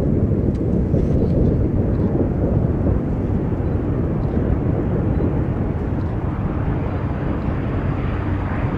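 ATR 72-600 turboprop airliner landing: a steady, heavy low rumble, with a rising hiss in the upper range toward the end.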